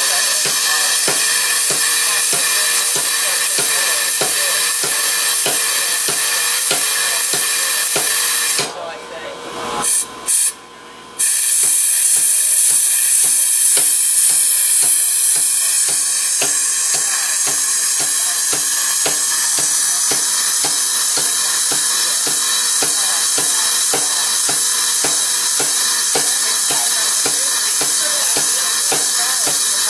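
Power hammer striking a spring swage in rapid, even blows, about three to four a second, over a steady hiss, as it forms an acorn on the end of a red-hot tong rein. The sound drops out for about two seconds about nine seconds in.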